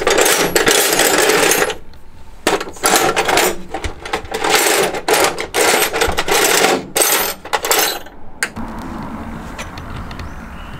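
Steel wrenches and hand tools clattering against one another in a full metal tool chest drawer as a hand rummages through it, in repeated loud bursts that die down about eight seconds in.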